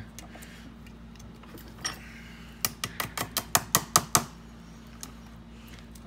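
A quick run of about a dozen sharp metal clicks, six or seven a second, as pliers work a cut-in-half deadbolt latch bolt loose in a steel bench vise, over a steady low hum.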